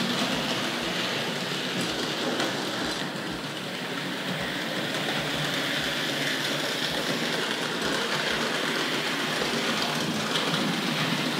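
Hornby Dublo 2-6-4 tank locomotive running steadily on three-rail track, its motor and wheels making a continuous running noise with short low knocks recurring about every half second.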